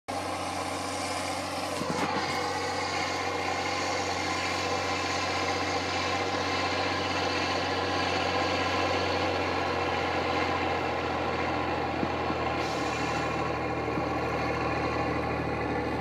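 Landini 14500 tractor's diesel engine pulling a plough under load, with a steady engine note throughout.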